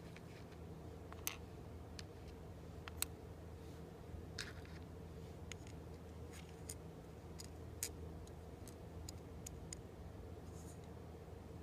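Satake GA20RA coffee sorting machine running on roasted beans: a steady low hum with irregular sharp clicks, a dozen or so scattered through.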